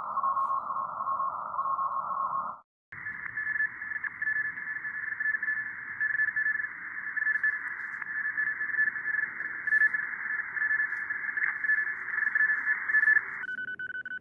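Morse code (CW) beeps from an amateur radio transceiver, a thin tone keyed on and off in dots and dashes over narrow-band receiver hiss. About three seconds in, the sound cuts out briefly and comes back with the hiss and the beeping tone higher in pitch; near the end the hiss drops away and a different, buzzier tone sounds.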